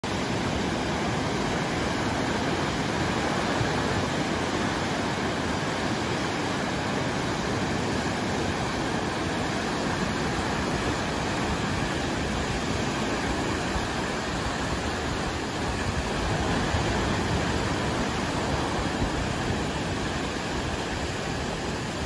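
Lake Michigan waves breaking and washing up onto a sandy beach: a steady, unbroken rush of surf.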